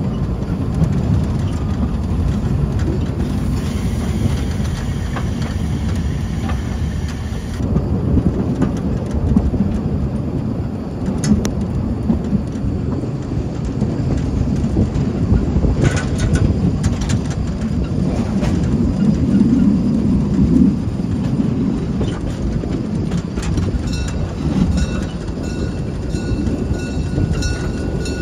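A narrow-gauge train hauled by a Saxon VII K steam locomotive, heard from an open car just behind it: a steady heavy rumble of the train under way, with wheels clicking over the rail joints now and then. A repeating high tone comes in near the end.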